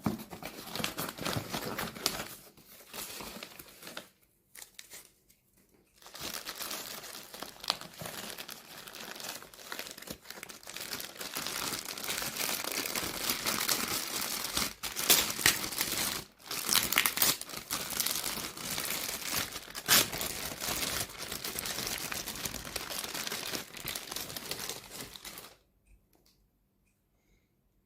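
Speaker packaging being unwrapped by hand: wrapping crinkling and rustling with sharp crackles and some tearing. It lets up for a couple of seconds about four seconds in and stops shortly before the end.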